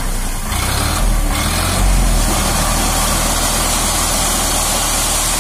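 Sonalika DI 47 RX tractor's three-cylinder diesel engine running steadily under load while its hydraulics raise the tipping trolley. The engine note steps up about half a second in and again near two seconds.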